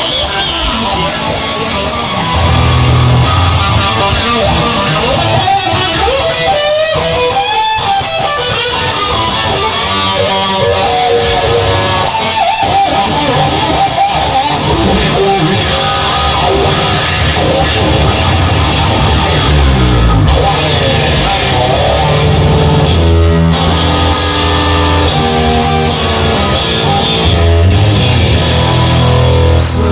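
Instrumental passage of a rock song: guitar-led band music over a strong bass, with no singing.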